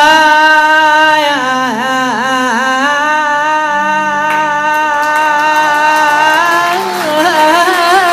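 A solo voice holding one long melismatic note in Arabic chanted-poetry style. It steadies on a single pitch, breaks into quick wavering ornamental turns about two seconds in, and does so again near the end, over faint steady low tones.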